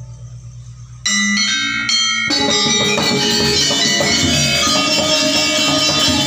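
Balinese gong kebyar gamelan: a low gong tone hums with a slow wobble and fades at a near-pause, then a few bronze metallophone notes ring out about a second in. Just past two seconds the full ensemble of metallophones and drum comes back in, loud and dense.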